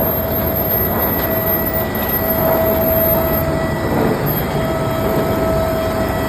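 Mobile asphalt road patching machine running: a steady, loud mechanical noise with a constant whine.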